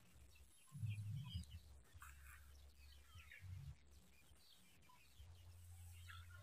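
Near silence: faint scattered bird chirps over a low rumble on the microphone, with a brief louder low swell about a second in.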